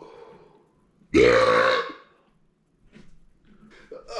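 A man's single loud burp, about a second long, starting about a second in, brought up by gulped carbonated soda.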